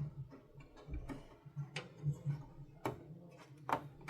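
A DDR4 RAM stick being handled and pressed into a desktop motherboard's DIMM slot: a few irregular, sharp plastic clicks and taps. A faint steady low hum runs underneath.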